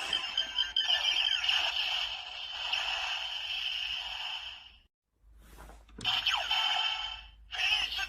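Bandai Kamen Rider Zi-O Ridewatch toy playing its electronic sound effects and music through its small, thin-sounding speaker. The sound stops about five seconds in and starts again about a second later, with another short break near the end.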